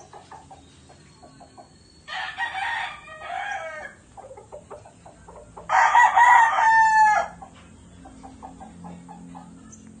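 Gamefowl roosters crowing: one crow about two seconds in, then a second, louder crow near the middle that ends on a long held note. Short, soft clucks continue throughout.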